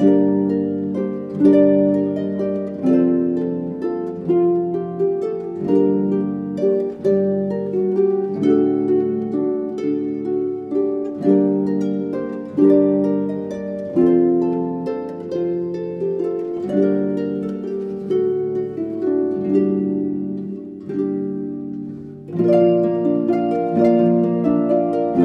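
Two concert harps playing: plucked notes and chords, each ringing and dying away, with about one new attack every second. The music briefly thins out about three-quarters of the way through, then comes back fuller.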